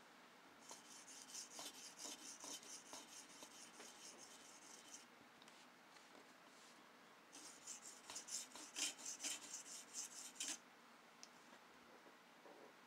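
Steel knife blade stroked across an oiled sharpening stone, light quick strokes in two runs with a pause of about two seconds between them, the second run starting about seven seconds in. The second side of the edge is being honed to raise a burr.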